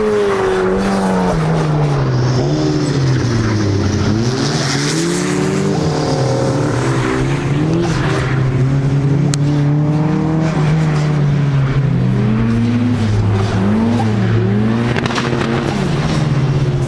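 Turbocharged 1.8-litre Mazda BP four-cylinder of a Miata-based Exocet track car, its engine note repeatedly rising and falling as it is driven hard through corners, with some tyre squeal as the car slides.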